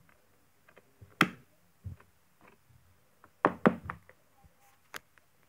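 Black plastic DVD case clicking and snapping as the disc is pressed onto its hub and the case is shut: a sharp click about a second in, a few lighter clicks, two loud snaps around three and a half seconds in, and a last click near the end.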